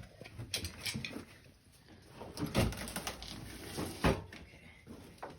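Knocks, bumps and scraping as an ATC three-wheeler, its front wheel locked by a stuck brake, is shoved and dragged into place. Two louder thumps come about two and a half and four seconds in.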